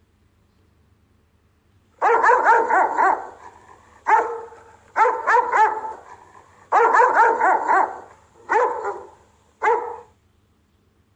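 A Rottweiler giving guard barks, in six quick bursts of several barks each. The barking starts about two seconds in and stops about a second before the end.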